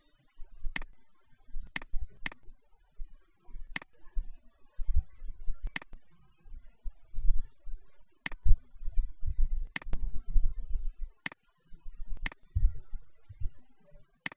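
Computer mouse clicking, about ten sharp single clicks at uneven intervals as anchor points are placed with a drawing tool. A patchy low rumble sits underneath.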